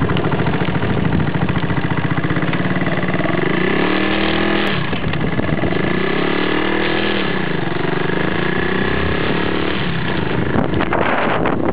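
Small motorcycle engine running while riding, its pitch rising and falling a few times in the middle as it speeds up and eases off. Near the end wind noise on the microphone takes over.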